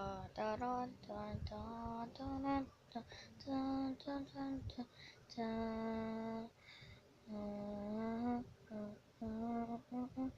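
A female voice singing a slow tune alone, in short phrases with a few long held notes.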